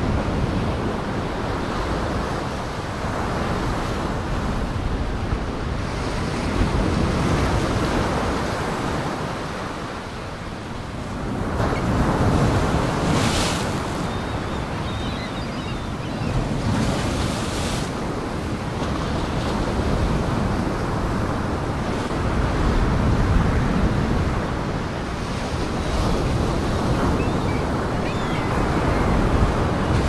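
Big storm waves surging and breaking, the rush of water swelling and easing every few seconds, with wind. Two sharper hissing splashes come about halfway through.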